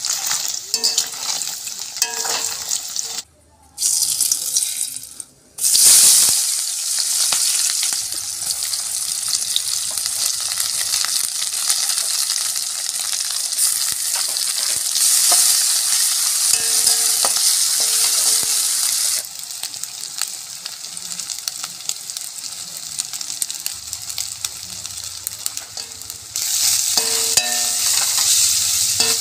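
Food sizzling in hot oil in a metal wok while a metal spatula stirs and scrapes against the pan: first cubes of paneer frying, later sliced onions and chillies. The sizzle cuts out twice near the start and swells louder at times as the food is turned.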